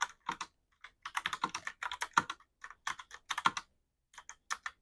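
Logitech POP Keys wireless mechanical keyboard being typed on, its keys clicking in quick irregular runs with a couple of short pauses.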